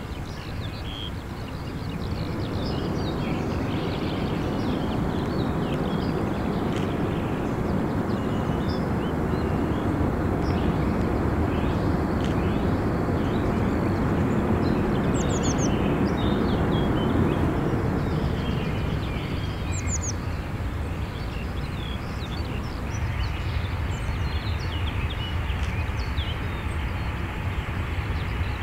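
Airbus A340 BLADE's four CFM56 jet engines as the airliner rolls out along the runway after landing: a steady roar that swells about two seconds in and eases slightly near the end.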